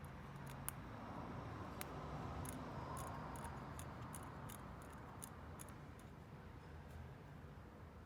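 Small hand work on a metal lighter: a soft rubbing noise that swells for a couple of seconds, with scattered light clicks.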